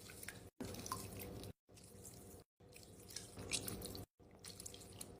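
Faint wet squelching and crackling of clear Orbeez water beads being squeezed, in several short stretches broken by sudden drops to silence.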